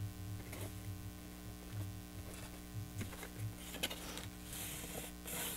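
Cardstock being pressed and handled: scattered soft clicks and taps, and two short papery rustles near the end, over a steady low electrical hum.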